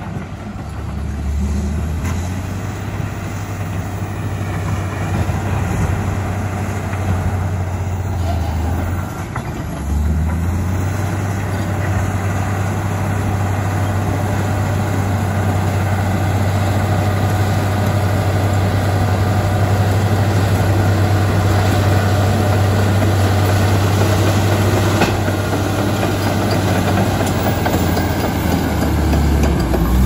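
Komatsu D85EX crawler dozer's diesel engine running steadily under load as the dozer pushes earth and rock with its blade. The engine note dips briefly about nine seconds in, then holds steady and a little louder.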